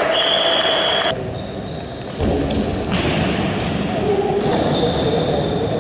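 Indoor futsal game in a large, echoing sports hall: indistinct voices of players and onlookers with occasional thuds of the ball. The sound changes abruptly about a second in and again about two seconds in, as the footage is cut.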